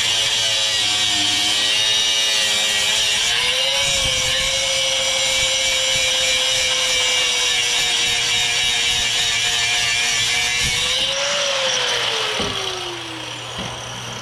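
High-speed power cutting tool with an abrasive wheel running steadily as it cuts through a rusted sway bar link: a constant whine over a hiss of grinding. Its pitch dips and recovers once under load, then about eleven seconds in the tool is let off and winds down with a falling whine.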